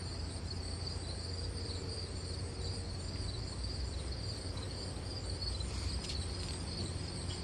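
Crickets chirping steadily in the background, over a low steady hum, with a few faint ticks about six seconds in.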